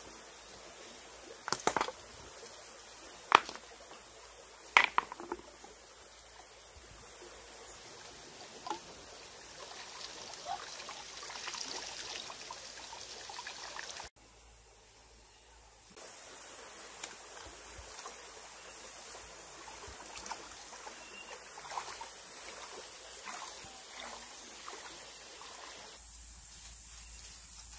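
Shallow stream trickling and flowing, with three sharp knocks in the first five seconds and a few fainter clicks later.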